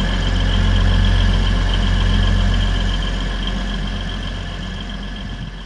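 Diesel engine of Network Rail's Sprinter-based Class 950 track-assessment unit 950001 running under power as the train passes, its steady drone fading away over the last couple of seconds.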